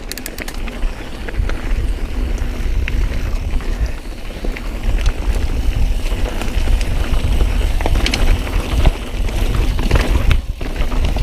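Mountain bike riding down a dirt trail: wind buffeting the camera microphone over a steady rumble of tyres, with scattered clicks and clatters from the bike going over bumps.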